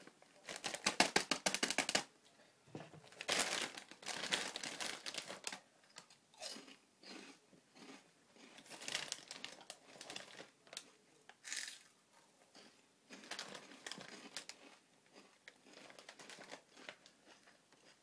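Plastic crisp packet crinkling and rustling as it is torn open and handled. It is loudest in dense bursts over the first few seconds, then settles into softer, scattered crinkles.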